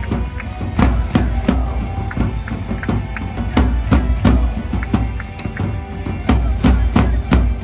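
Cheer music with a heavy bass beat and sharp percussive hits, about two to three a second.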